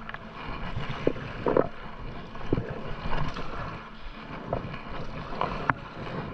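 Kayak paddle strokes in river water: a few short splashes and drips over a steady wash of moving water, with wind buffeting the microphone.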